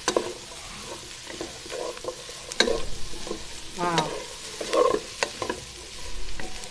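Wooden spatula stirring and tossing chopped vegetables and egg in a hot oiled wok, over a steady sizzle of frying. The spatula knocks and scrapes against the pan at irregular moments.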